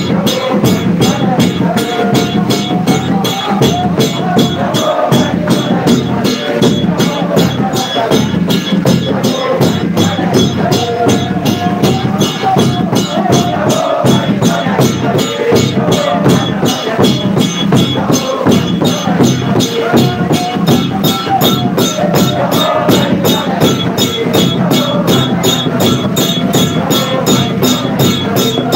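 A congregation singing together to a large drum beaten in a steady, fast rhythm, with a bright rattling percussion beat on top.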